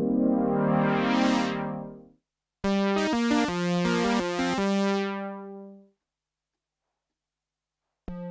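Behringer Poly D analog synthesizer playing a held tone whose filter sweeps open and bright, then dies away about 2 s in. After a short gap comes a quick run of notes ending on a held note that fades out. A new sound starts just before the end.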